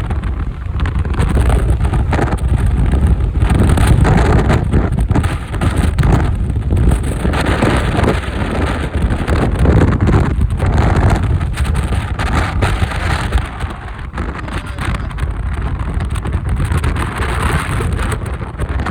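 Strong typhoon wind buffeting and rumbling on the microphone of a moving motorcycle, over the bike's running and road noise.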